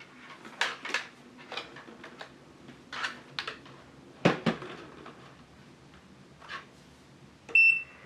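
A series of sharp clicks and knocks from the plastic dehumidifier being handled, the loudest about four seconds in, then near the end one short, high electronic beep from the OMISOON dehumidifier's control button.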